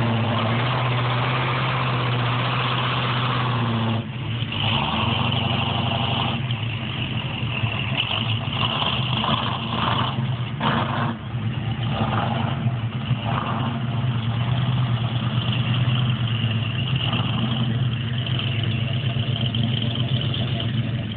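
Lifted Chevy 4x4 pickup's engine running hard as its big tyres spin in loose sand, dropping off sharply about four seconds in, then pulling on unevenly as the truck drives through the sand.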